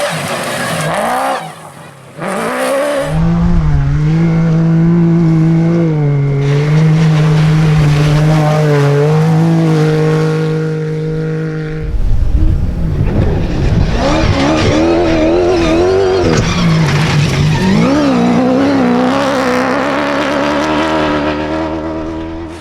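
Rally-raid competition vehicle engines running hard at speed, heard across several short shots. Engine pitch holds high with small steps up and down, then rises and falls with throttle and gear changes from about halfway through.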